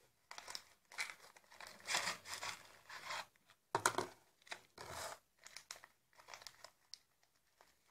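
Small clear plastic bag crinkling and rustling in the hands, in short irregular crackles.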